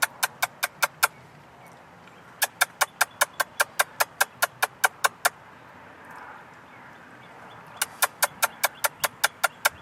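Squirrel chattering: three runs of sharp, rapid clicks, about five or six a second.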